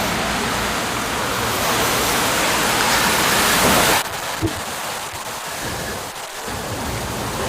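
Wind noise on the microphone, loud for about four seconds, then dropping suddenly to a weaker, uneven rush.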